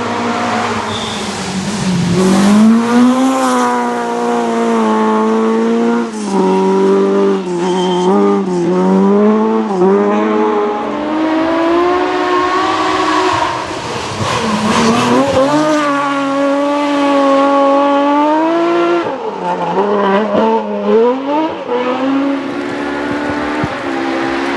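Rally car engine revved hard, its pitch climbing and dropping again and again as the driver accelerates, shifts and lifts through the stage.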